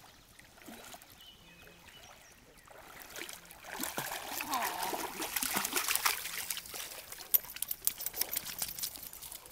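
Schnoodle splashing through shallow creek water, starting about three seconds in and loudest in the middle, then a run of short sharp clicks near the end as it steps out onto the stony gravel bank.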